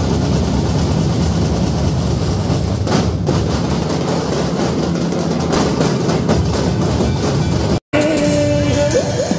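Loud, dense procession drumming blended with crowd noise. Near the end it cuts off abruptly and gives way to music with long held notes.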